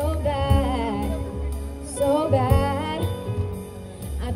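Live jazz band: a woman singing with vibrato over keyboard, upright double bass and drum kit, with cymbal strokes keeping a steady beat. The music drops in level briefly near the end.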